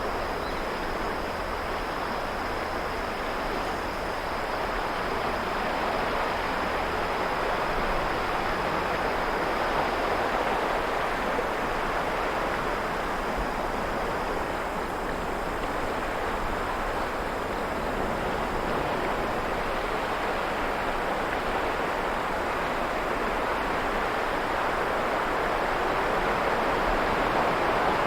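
Ocean waves washing on a shore in a steady rush that swells and eases slowly every several seconds, with a faint, high, steady insect trill that fades out about halfway through.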